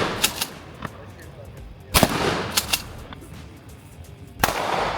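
Two rifle shots about two and a half seconds apart, each with an echoing tail, and a few sharp clicks in between.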